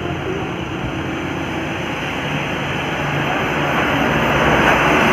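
Road traffic noise: the steady rushing hum of a vehicle's engine and tyres on the road, growing louder through the second half as it draws closer. No horn sounds.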